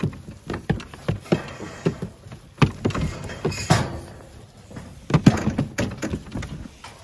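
Irregular knocks, thuds and clatter, several a second, of sheep jostling against metal handling gates and hurdles during scanning.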